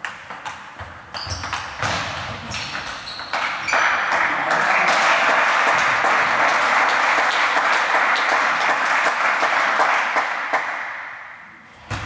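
Celluloid table tennis ball clicking off bats and table in the last strokes of a rally. A few seconds in, a loud, steady rushing noise takes over for about seven seconds and then fades away.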